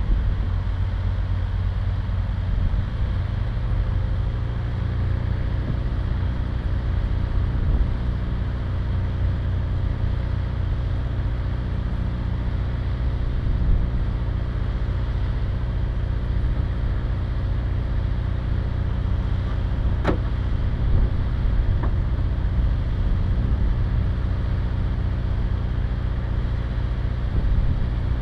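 Car engine idling steadily with a low rumble. A single sharp click sounds about twenty seconds in.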